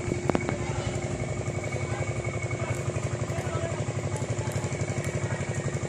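A small engine running steadily, with an even, rapid low putter and a steady tone above it.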